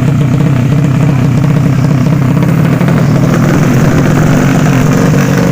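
Tuned 200 cc underbone drag-racing motorcycle engine running loudly and steadily.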